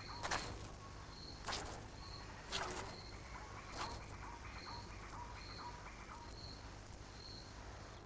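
Male lion spraying urine onto bushes in four short hissing squirts over the first four seconds, marking the pride's territory. Throughout, faint insect chirps repeat about once a second.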